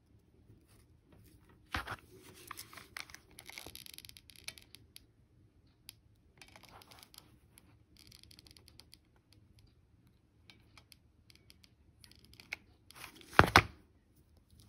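Close handling sounds of hot-glue shell crafting on cardboard: small clicks, rustles and scrapes of fingers, shells and a hot glue gun. A sharp click comes about two seconds in, and a short, loud scrape-and-knock comes near the end.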